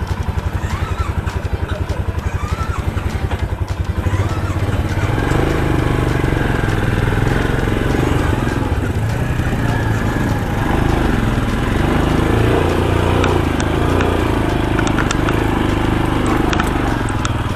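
Motorcycle engine running with an even, fast pulsing beat, rising to louder, steadier running about four seconds in.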